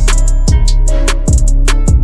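Background music with a steady beat: deep drum hits that drop in pitch, sustained chords and quick high cymbal ticks.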